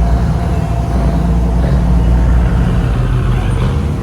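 A large engine running steadily with a loud, low rumble.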